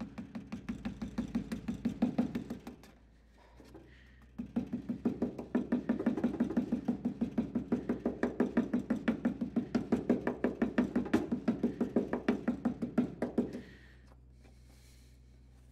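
Small hammer tapping rapidly and evenly through a sheet of paper onto a Fiat Dino's steel door frame, knocking out an impression of the hinge holes the way a gasket is made up. The tapping pauses briefly about three seconds in, resumes, and stops a couple of seconds before the end.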